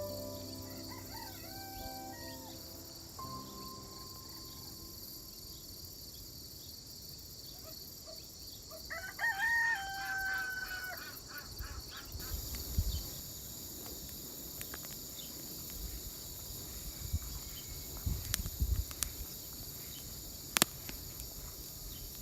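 A rooster crows once, about nine seconds in, over a steady high chorus of insects; scattered clicks and low bumps follow in the second half.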